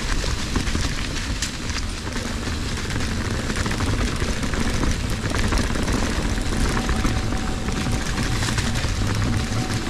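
Fezzari Cascade Peak mountain bike ridden fast down a rocky dirt trail: wind rushing over the helmet-mounted GoPro microphone, with a constant clatter and rattle of the bike and tyres over rough ground.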